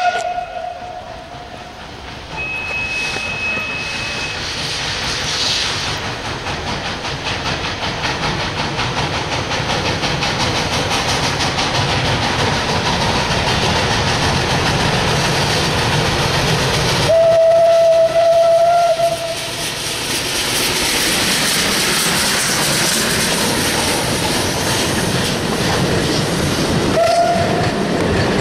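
Steam locomotive 534.0432 sounding its steam whistle as it pulls away with its train, its exhaust chuffing and steam hissing. The whistle sounds again for about two seconds around two-thirds of the way through and briefly near the end. Toward the end the coaches roll past with wheels clicking over the rail joints.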